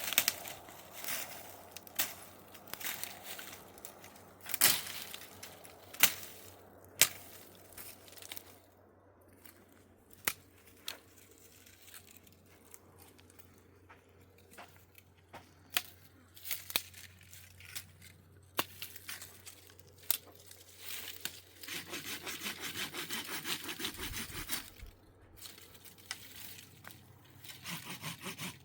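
Pieces of wood knocking and cracking as they are handled, then a handsaw cutting through wood in quick back-and-forth strokes from about three quarters of the way in.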